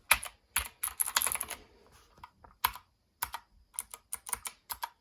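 Clicky Gateron Blue switches on an HK Gaming GK61 mechanical keyboard clicking as keys are pressed. There is a quick flurry of presses in the first second and a half, then a run of separate single presses.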